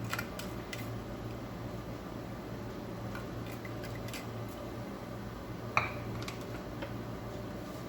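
Mustard and cumin seeds spluttering in hot sesame oil in a kadai: scattered small pops over a low sizzle, with one sharper pop about six seconds in, over a steady low hum.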